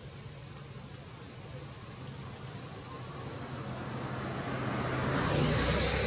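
A motor vehicle passing by, its engine and road noise growing louder over a few seconds and peaking near the end.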